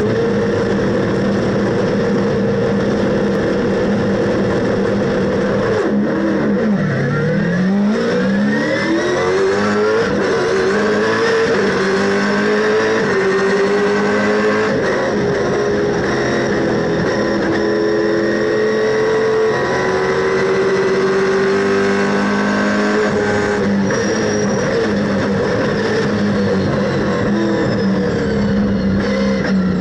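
Race car V8 engine heard from inside the cockpit, running hard throughout. About six seconds in the engine note drops sharply, then climbs again in several steps through gear changes and runs fairly steady for the rest.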